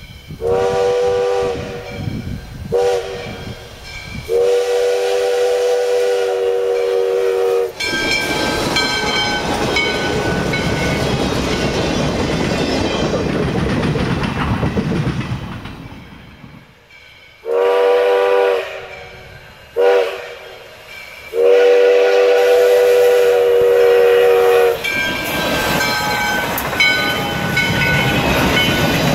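Steam locomotive whistle of ex-FEC 4-6-2 Pacific No. 148 blowing a long blast, a short blast and a long blast. The locomotive and train then run past with steady rolling noise, and the whistle sounds the same long, short, long pattern again about 17 seconds in.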